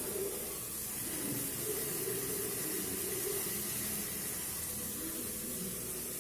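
Cubed potatoes cooking in oil in a covered kadai, a steady sizzling hiss.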